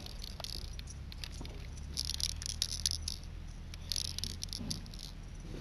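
Light clicking and rattling of a BB gun being handled, in short clusters of small clicks.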